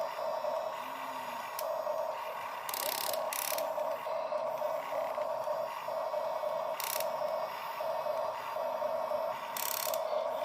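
Radio-controlled excavator's small electric motors and gearboxes whining in repeated short bursts, with a few brief noisy rasps between them.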